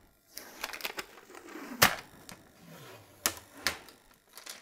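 Sticky protective plastic film being picked at and peeled off a monitor light bar's plastic mount, giving several sharp clicks and ticks, the loudest about two seconds in.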